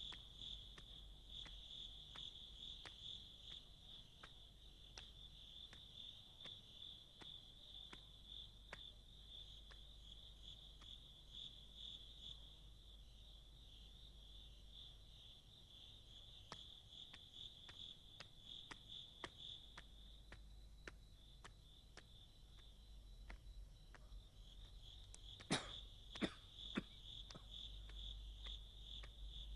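Crickets chirring steadily, a continuous high pulsing trill, with faint scattered ticks and a few sharper clicks near the end.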